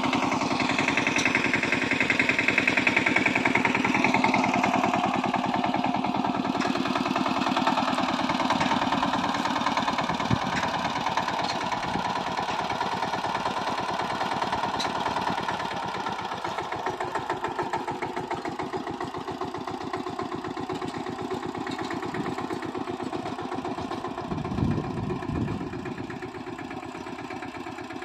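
Kamco power tiller's single-cylinder diesel engine running with a fast, even chugging, growing gradually fainter as the tiller is walked away. There is one brief louder knock near the end.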